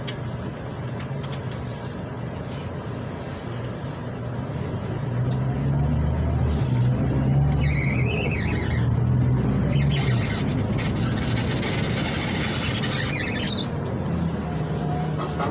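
Cabin sound of a LiAZ 6213.21 articulated city bus under way, its MAN D0836 diesel running and growing louder about five seconds in as the bus pulls through traffic. Short high-pitched squeals come in twice, and again near the end.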